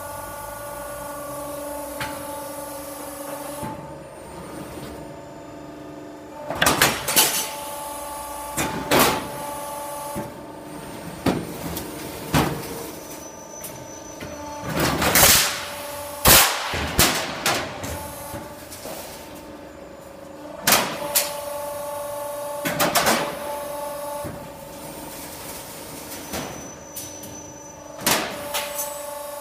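Automatic air-conditioning duct production line running: a steady machine hum with several tones, broken every few seconds by sharp metal bangs and clanks from the line's notching and cut-to-length stations working the sheet metal.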